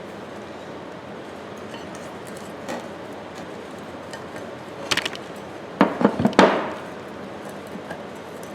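Sharp metal clinks and knocks of hand tools against a Ridgid pipe wrench while it is worked on to free its stubborn spring: a pair about five seconds in, then a quick run of three or four, each ringing briefly, over a steady hiss.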